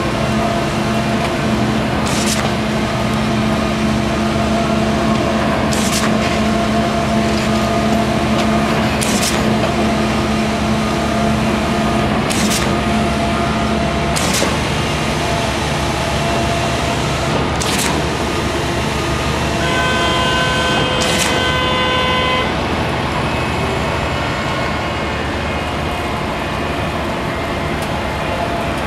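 Fundex F3500 piling rig's engine and hydraulics running steadily under load while it drills a large-diameter continuous-flight-auger pile, the engine note changing about halfway through. A short sharp sound repeats every three to four seconds, and about twenty seconds in a steady horn-like tone sounds for about two and a half seconds.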